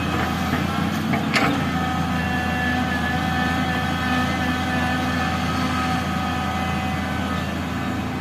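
Excavator's diesel engine running steadily under a low, even hum, with a fainter high whine above it and a single metal clank about a second and a half in.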